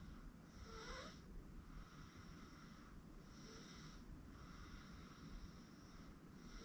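Faint, even sleep-breathing and light snoring of an 8-month-old baby: soft hissing breaths in and out, one roughly every second, over a steady low room hum.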